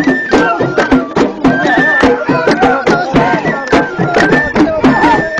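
Ahwash, the Amazigh collective song-dance: a chorus of men singing a chant in unison while clapping their hands in a fast, steady rhythm.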